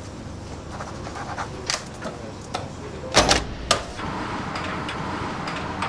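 Small clicks and handling noises of desk work, then two loud sharp knocks about three seconds in, followed by steady outdoor background noise.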